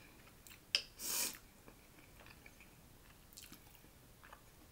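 Eating taco soup from a glass bowl with a metal spoon: a sharp click about three-quarters of a second in, a short wet mouth sound just after a second, then faint chewing.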